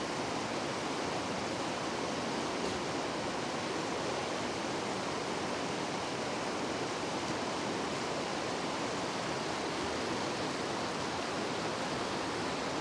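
Steady, even rush of fast-flowing river water.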